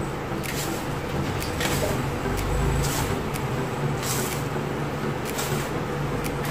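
Gloved hands mixing dry sand and cement in a metal tray: gritty scraping and rustling strokes every half second to a second, over a steady low hum.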